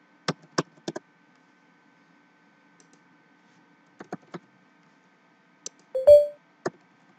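Scattered computer keyboard keystrokes and mouse clicks, a few at a time with pauses between them. The loudest sound is a short thump with a brief hum in it, about six seconds in.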